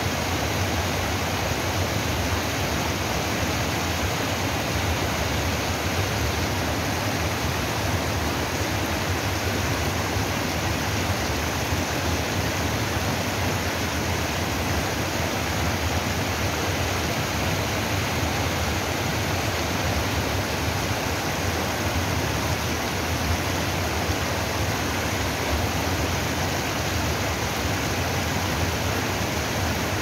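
Shallow stream water rushing in small cascades over a low rock ledge: a steady, loud splashing that does not change.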